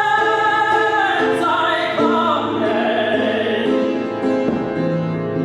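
Operatic singing with piano accompaniment: a voice holds slow, sustained notes with vibrato on the words "hands I … commend".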